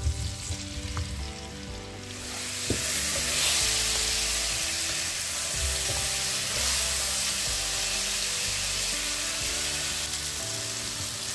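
Pisang raja banana pieces frying in hot fat in a nonstick pan, sizzling. The sizzle swells about two seconds in as the pieces heat, and a wooden spatula stirs them.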